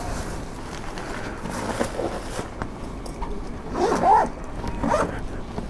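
Thin plastic carrier bags of groceries rustling and crinkling as they are handled. Two short rising-and-falling sounds about four and five seconds in.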